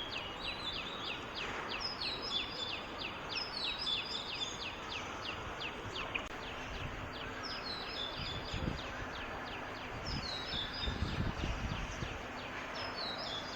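Birds calling: a fast series of short, downward-sliding chirps, about five a second, with bursts of higher twittering over it, against steady outdoor background noise. A low rumble comes twice in the second half.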